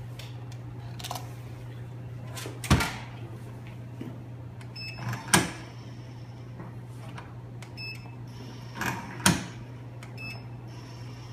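A laboratory centrifuge's lid is shut with a loud thump, followed by a few more knocks on the machine and short electronic beeps from its control panel, over a steady low hum.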